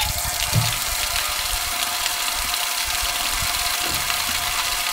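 Water running steadily from a drinking-water fountain into a jerry can, a constant rush with a faint steady ring in it.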